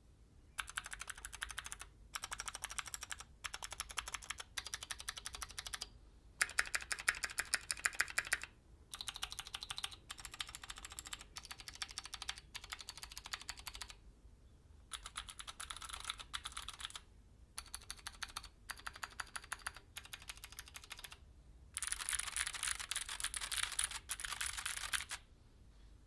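Keychron Q6 full-size aluminium mechanical keyboard being typed on: quick runs of keystrokes in bursts of a second or two, broken by short pauses.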